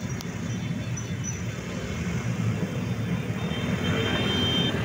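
Engines of a slow column of motorcycles and motorised tricycles running together as they ride past, a steady low drone of traffic.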